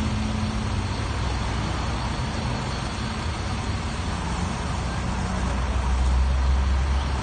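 Engines of a tipper lorry, a material feeder and a mini asphalt paver running together: a steady low rumble that grows louder about six seconds in.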